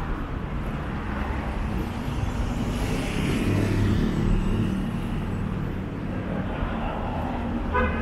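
Street ambience of road traffic: a steady rumble of cars on the road, with a vehicle passing and swelling louder about halfway through.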